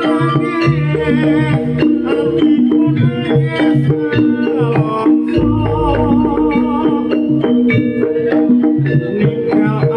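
Live Javanese jaranan campursari music: a gamelan-style ensemble of kendang hand drums and ringing metallophones playing a steady beat under a singer's wavering voice. A deep low stroke booms about five and a half seconds in.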